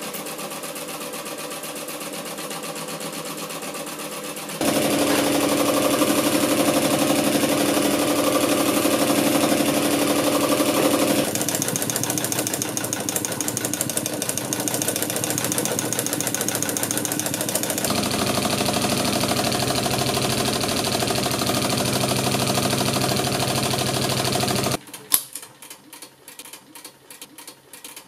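Industrial embroidery sewing machine running steadily at speed as the fabric is guided by hand under the needle, its loudness and tone changing abruptly a few times. Near the end the running sound stops, followed by a sharp click and softer, irregular ticking.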